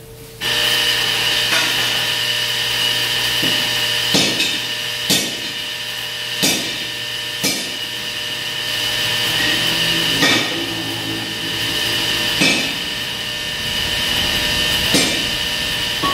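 A power tool running with a steady high whine that starts abruptly just after the beginning, with sharp knocks at irregular intervals, about eight in all.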